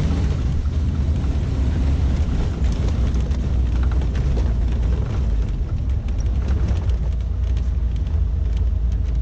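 1988 Suzuki SJ413 Samurai driving off-road on a gravel mountain track: a steady low engine and drivetrain rumble, with frequent small clicks and rattles.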